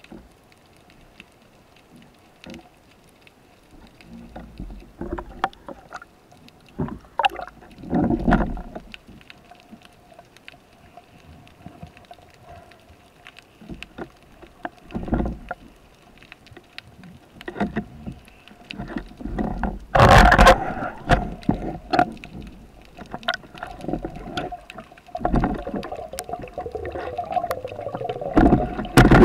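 Underwater sound on a freediver's action camera: water rushing past the housing in uneven surges, with scattered clicks and knocks and a faint steady hum. A loud rushing burst comes about two-thirds of the way through.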